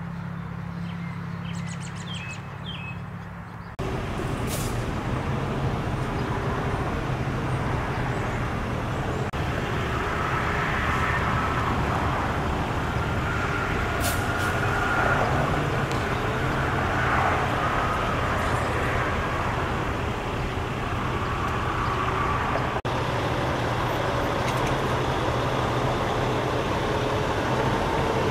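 Birds chirping over a low hum for the first few seconds, then about four seconds in the sound cuts to louder, steady engine noise of heavy vehicles running nearby, with a few held whining tones.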